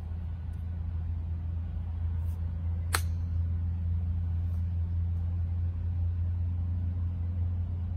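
Sand wedge chip shot: one sharp click of the clubface striking the golf ball about three seconds in, over a steady low rumble.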